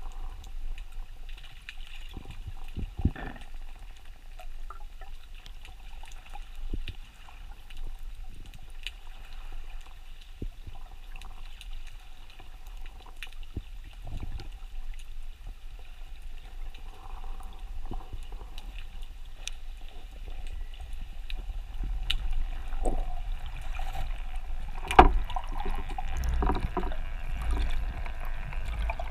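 Underwater sound picked up by an action camera in its waterproof housing: a steady low rumble of moving water with scattered sharp clicks and knocks. The rumble grows louder over the last several seconds as the diver kicks with his fins.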